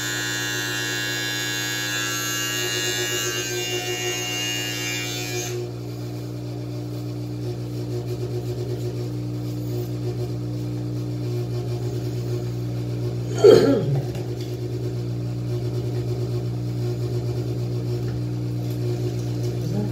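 Electric beard trimmer running with a steady buzz, bright and full while it cuts at the chin for the first five or six seconds, then carrying on as a lower, duller hum. A single short, loud sound breaks in about two thirds of the way through.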